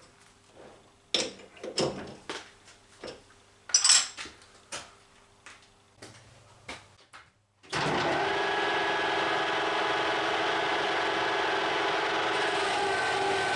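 Sharp metallic clicks and knocks as a workpiece is set and clamped in a lathe chuck. After a brief cut, the lathe starts and runs steadily with a whine over a broad mechanical noise, its pitch dipping slightly near the end.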